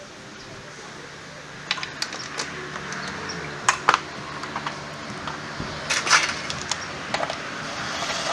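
Hand tools and metal parts clinking during scooter repair work: a scatter of sharp metallic clicks and knocks, a few in quick pairs, over a steady hiss that grows a little louder after the first second.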